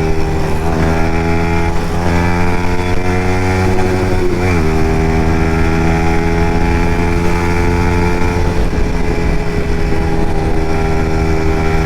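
Yamaha MT-15's single-cylinder engine with an Akrapovic exhaust running steadily under way, mixed with wind rush. About four and a half seconds in its pitch dips briefly, then climbs slowly, and it fades under the wind noise after about eight and a half seconds.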